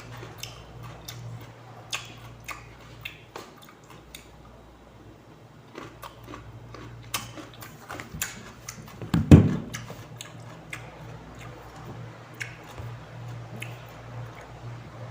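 Crisp, irregular crunching and chewing of raw cucumber, with a louder thump about nine seconds in.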